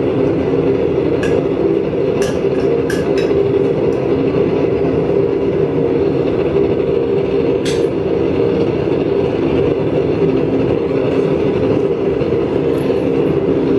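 Homemade blast furnace just fired up, its burner and blower running with a loud, steady rush, and a few sharp clicks over it in the first seconds and again about eight seconds in.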